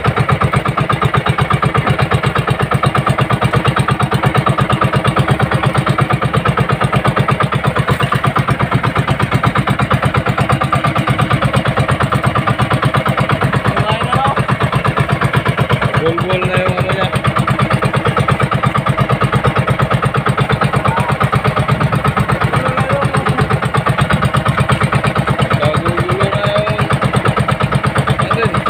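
Small outrigger boat's engine running steadily with a fast, even throb. A voice calls out faintly a few times over it, around the middle and near the end.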